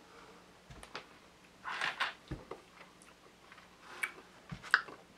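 Quiet mouth and handling sounds while hot sauce is tasted off a plastic spoon: scattered light clicks and taps, a short breathy slurp about two seconds in, and a couple of dull low knocks.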